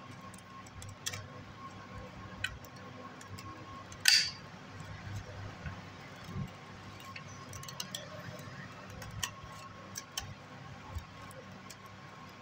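Metal snips cutting the old copper winding wire out of an electric pump motor's stator: scattered small metallic clicks and snips, with one louder, sharper cut about four seconds in.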